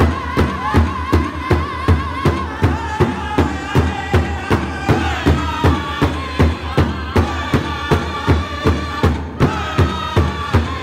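Powwow drum group singing together over a large powwow drum struck in unison by several drummers, a steady beat of about three strokes a second. The voices open on a long held high note, then move on through the song.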